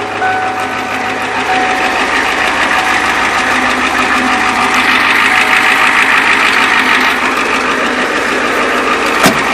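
1993 Ford F-450 Super Duty's engine idling steadily. A single sharp click comes near the end.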